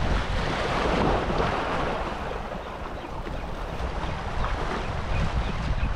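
Wind buffeting the microphone over choppy sea water washing against shoreline rocks. The rush of water swells over the first two seconds and then eases.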